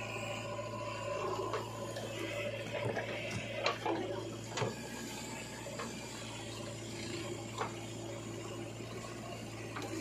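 JCB 3DX backhoe loader's diesel engine running steadily while its bucket tips soil into a steel tractor trolley. A few sharp knocks and clanks sound from the bucket and the falling earth, the loudest about four seconds in and another near the end.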